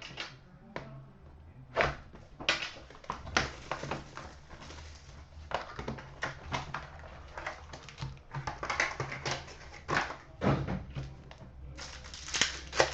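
Crinkling and rustling of packaging as a hockey trading-card box and its packs are opened, with irregular short scrapes and taps of card handling over a steady low hum.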